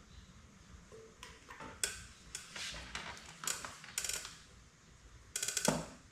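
Metal hand tools and parts clinking and clicking in a series of short knocks, with a rattling burst of rapid ratchet-like clicks near the end.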